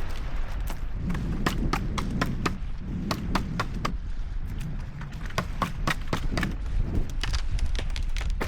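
A series of irregular sharp knocks and taps, at times several a second, over a low steady rumble.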